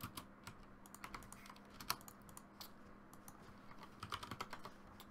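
Computer keyboard typing: faint scattered keystrokes in short bunches, about a second in and again around four seconds in, over a low steady hum.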